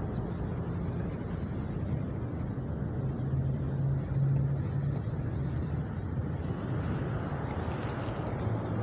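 Steady low rumble of motor traffic with an engine hum that swells about three to four seconds in; a few faint clicks near the end.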